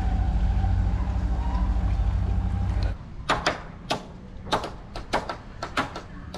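Small fishing boat's engine running with a steady low throb, ending abruptly about three seconds in. A quieter stretch follows with about eight sharp, irregular knocks.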